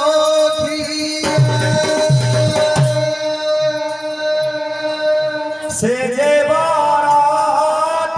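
Devotional bhajan-kirtan music: voices singing over steady held notes, with a drum. Three deep drum strokes come between about one and a half and three seconds in.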